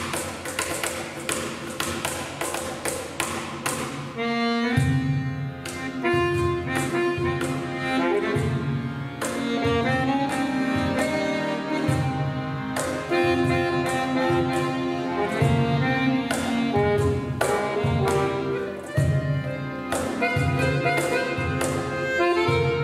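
Cajón played alone in a quick rhythm, then about five seconds in a bayan and a piano accordion come in with chords and a melody over the cajón's steady beat.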